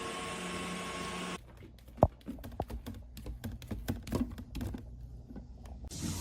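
A steady hum and hiss that cuts off about a second and a half in, followed by a run of irregular light clicks and taps, like keys being pressed, with one louder tap soon after the change.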